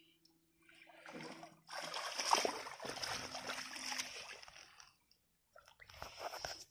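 Shallow seawater splashing and sloshing around wading feet: one long spell starting about a second in and lasting some four seconds, then a shorter one near the end.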